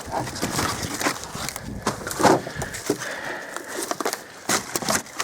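Irregular footsteps, knocks and crackling of debris as someone clambers through cluttered junk, with the loudest knock a little over two seconds in.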